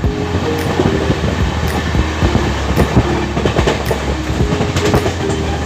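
Passenger train running at speed: a steady low rumble with the wheels clacking and knocking over rail joints.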